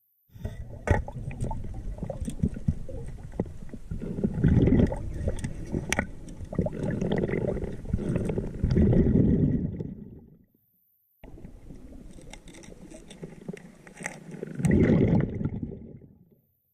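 Underwater recording of a scuba diver's exhaled bubbles gurgling from the regulator in several swells, with scattered sharp clicks and knocks.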